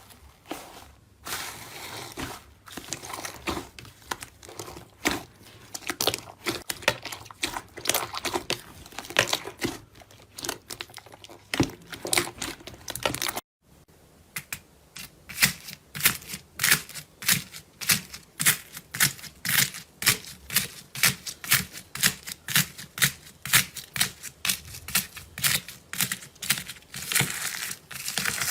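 Slime being pressed and squeezed, giving dense crisp crackling and popping clicks. After a brief break about halfway through, a second slime pops in a steady run of about two sharp clicks a second.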